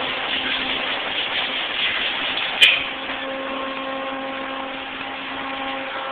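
Automatic car wash machinery running, a steady rush of spray and hanging cloth brushes. A sharp knock comes about two and a half seconds in, and a steady motor hum sets in just after.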